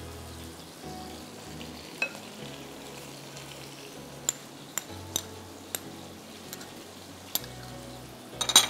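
Steady sizzle of marinated beef undercut frying in oil in a pan, with scattered light clinks of a metal spoon against a ceramic plate as mustard paste is scraped off it, and a quick run of clinks near the end.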